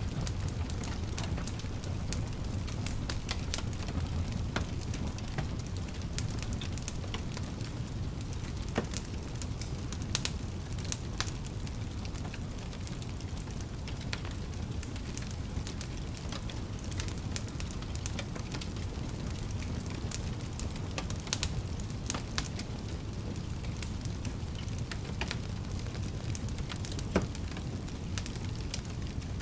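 Wood fire burning in a fireplace: a steady low rumble of flames with irregular sharp crackles and pops, one louder pop near the end.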